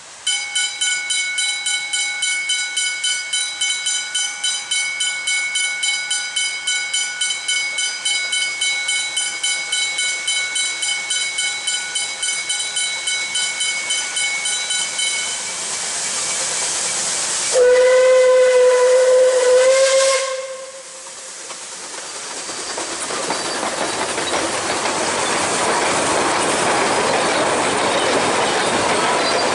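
Puffing Billy narrow-gauge steam train working. A high ringing tone pulses about three times a second for roughly fifteen seconds, then a steam whistle blows once, loud, for about three seconds. After that a steady rushing noise grows as the train comes on.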